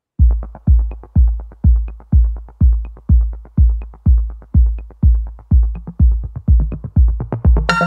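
Electronic dance music with a heavy bass kick drum about twice a second and a light tick on every other beat. Synth chords come in near the end.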